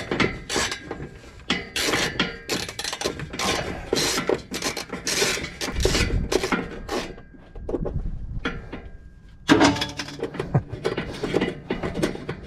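Hand ratchet on a long string of extensions clicking in quick, repeated strokes, backing out a bolt that has already broken loose. The clicking stops for about two seconds partway through, then starts again.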